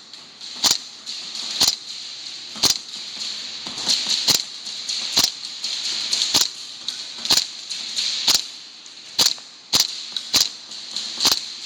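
Airsoft gun fired in single shots, sharp snapping pops at roughly one a second, with a couple of shots in quicker pairs.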